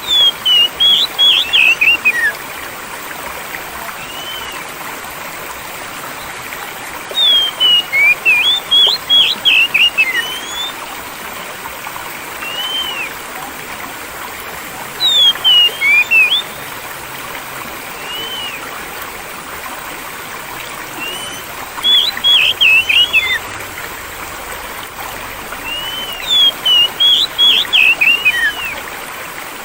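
A songbird sings five short bursts of quick, clear whistled phrases, with single arching whistle notes in between, over a steady rush of flowing water. It is a calming audio-therapy track for caged songbirds.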